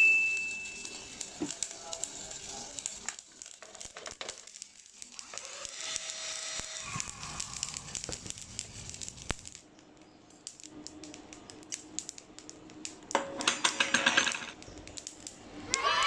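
Robusta coffee beans popping through second crack in a small home-built drum roaster: scattered sharp snaps that mark a dark roast. A short high beep at the very start, and a dense burst of clicking and rattling for about a second and a half near the end.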